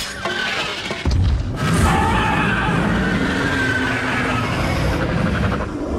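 A dragon's deep, rasping growling roar, a film creature sound effect, swelling in with a heavy low rumble about a second in and carrying on. A short sharp crack comes right at the start.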